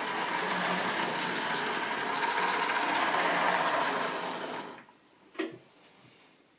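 Model railway diesel locomotive and its train running round the track: a steady whirring of the small electric motor with the rattle of wheels on rail, dropping away about five seconds in. A single sharp click follows soon after.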